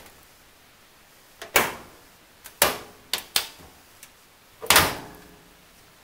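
Kenmore electric dryer's steel front panel and door being handled and pushed into place: a series of about six knocks and clunks over three seconds.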